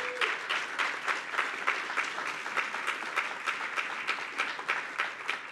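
Audience applauding with steady clapping.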